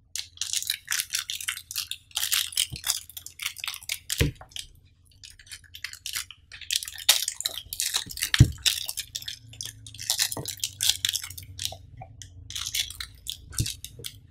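Crinkling of the clear plastic wrap around a power bank as fingers pick and pull at it in its box, in several bursts of crackle. Four sharp knocks sound in between as the pack or fingers bump the box.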